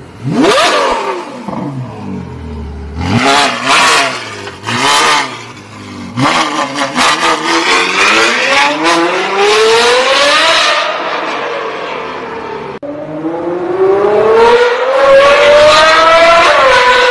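Ferrari F12berlinetta's V12 revving in several quick blips, then accelerating away in one long rising pull that fades out. After a cut, a Ferrari 812 Superfast's V12 accelerates in another long rising pull, its pitch dropping near the end.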